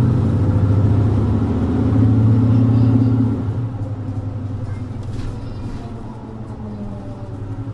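Mercedes-Benz Citaro 2G city bus's OM470LA six-cylinder diesel engine running under load, heard from inside the bus, with a ZF EcoLife automatic gearbox. About three seconds in, the engine note drops and stays quieter as the load eases.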